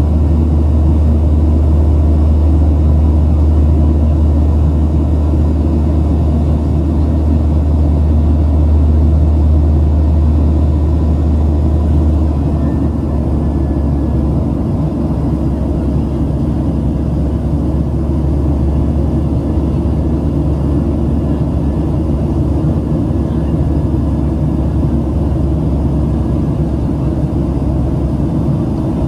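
Cabin noise inside a Southwest Airlines Boeing 737-700 in flight: the CFM56 jet engines and airflow make a steady deep drone with a rushing hiss over it. The lowest part of the drone eases slightly about halfway through.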